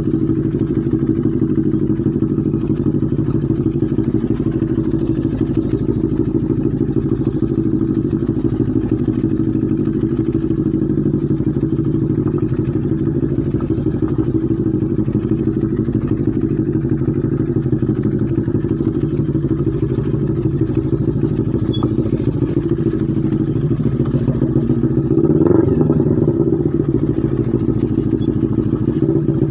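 Motorcycle engine running steadily at low speed over a rough dirt track, a close, continuous low drone. The engine revs up briefly and settles again near the end.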